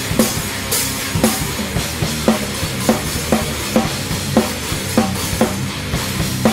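Instrumental doom metal passage: a drum kit strikes a steady beat of about two hits a second over low, held guitar and bass tones, with cymbal crashes in the first second or so.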